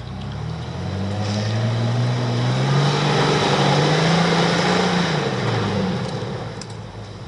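Jeep Wrangler engine under load on an off-road trail: it rises in pitch and loudness over the first few seconds, holds, then drops away about five and a half seconds in, with tyre and trail noise beneath it.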